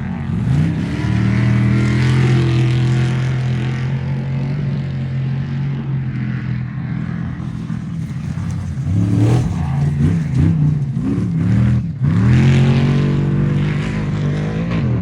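Off-road race truck engines running hard at high revs, mostly at a steady pitch. In the second half the revs swing up and down several times, then break off abruptly before a steady run resumes.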